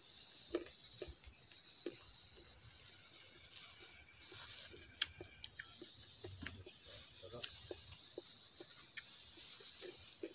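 A steady high-pitched chorus of forest insects, with soft wet clicks and smacks of someone eating close to the microphone, chewing and eating rice by hand. A few sharper ticks stand out, the loudest about five seconds in.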